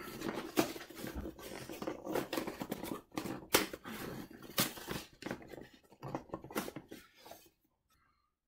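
Cardboard box being pried open and handled: rustling and scraping with sharp crackles, dying away near the end.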